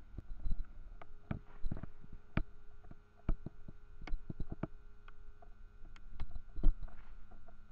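Irregular clicks and soft knocks of handling noise on a handheld camera, some with a low thud, over a faint steady electrical hum.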